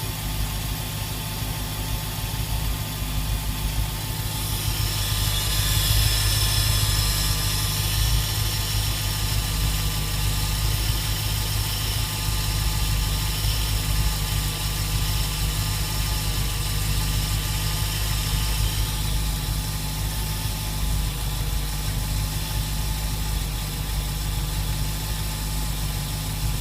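An SRT8's V8 engine idling steadily, with a high hissing noise over it that swells up about four seconds in and dies back down about two-thirds of the way through.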